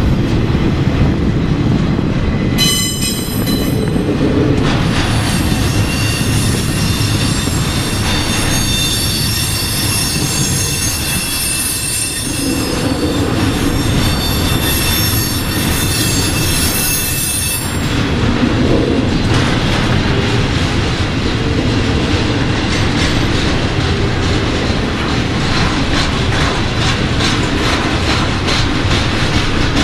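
Freight cars loaded with highway trailers rolling past, their steel wheels rumbling steadily on the rail. Shrill, steady wheel squeal sounds from about three seconds in until about halfway through, then gives way to a rhythmic clickety-clack of wheels over the rail joints.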